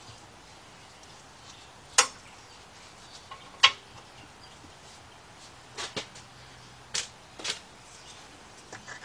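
Scattered sharp clicks and knocks of hand tools and loose parts being handled, about six in all, the loudest with a brief metallic ring a little over three and a half seconds in.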